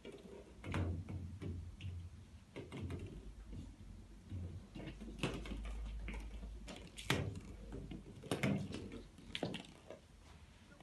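Irregular light knocks and thuds of a cat playing with a ball on a hard floor, several close together near the middle over a low rumble.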